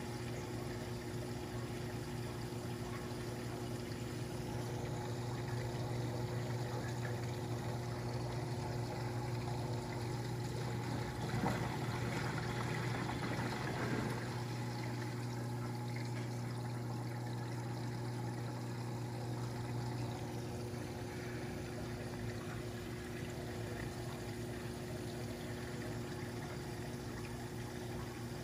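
Saltwater aquarium running: water pouring and trickling steadily from the pump and filter return, over a low electric hum. The water grows a little louder about halfway through, and the lowest part of the hum fades out about two-thirds of the way through.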